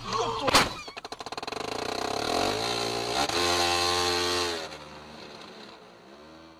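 A sharp knock about half a second in, then a car engine revving hard, its pulses speeding up. Its pitch then falls and the sound drops away and fades.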